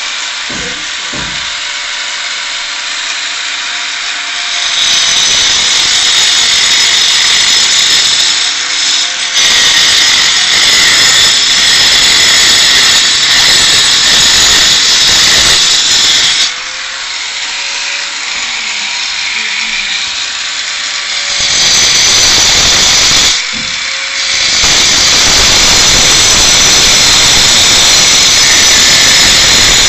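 Handheld angle grinder with a cutting disc slicing grooves into a cast concrete column. It runs with a steady high whine that turns louder and harsher three times, for long stretches, as the disc bites into the concrete, and eases in between.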